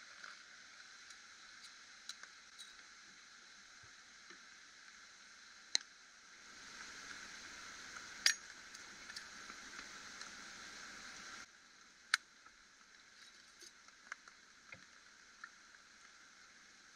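Faint steady hiss with a few sharp clicks, the strongest about six, eight and twelve seconds in; the hiss is louder for a stretch in the middle and drops suddenly just after eleven seconds.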